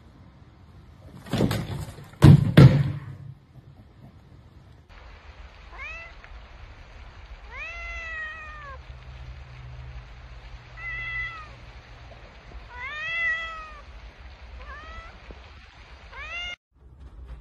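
A plastic storage tub with a cat inside tips over and crashes down, with a loud bang about one and a half seconds in and a bigger double bang just after. Then a cat meows about six times, each call rising then falling in pitch.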